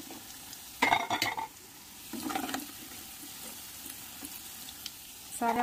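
Hot oil sizzling in a steel kadhai as fried besan dumplings are scooped out with a steel spoon, which scrapes and clinks against the pan about a second in and again about two seconds in.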